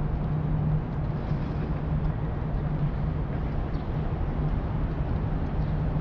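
Steady outdoor city background noise with a constant low hum.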